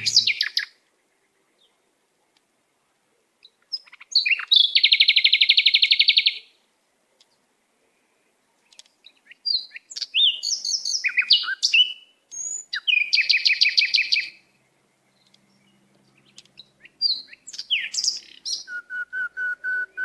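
Songbird-like chirping in short, separate phrases: quick gliding chirps and two rapid trills of about a second and a half each, with silent gaps between. Near the end comes a run of evenly spaced, lower, steady notes.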